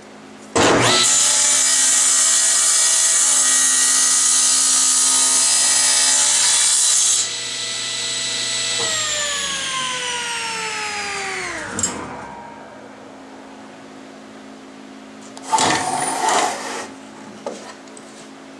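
General 350 table saw cutting through a turned wooden cylinder, a loud steady whine for about six seconds. The saw then runs free briefly and is switched off, its pitch falling as the blade spins down. Brief knocking and rubbing follow a few seconds later as the wooden clamp and workpiece are handled.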